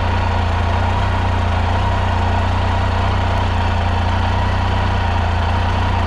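Triumph Tiger 800's inline three-cylinder engine idling steadily.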